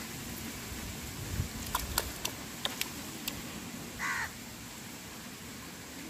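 A domestic duck's bill working wet mud, giving a cluster of sharp clicks, then one short bird call about four seconds in.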